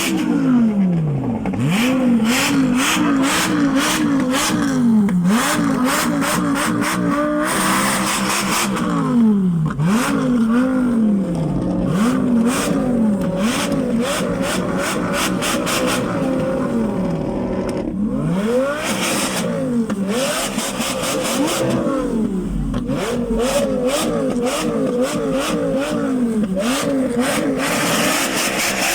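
Lamborghini supercar engine being revved again and again in quick blips. The pitch jumps up and falls back about once or twice a second, with a few longer held revs and sharp pops in between.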